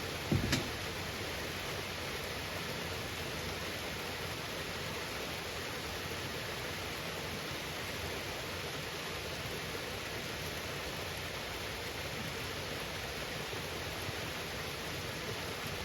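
Steady rain falling, an even hiss. A couple of short knocks sound about half a second in.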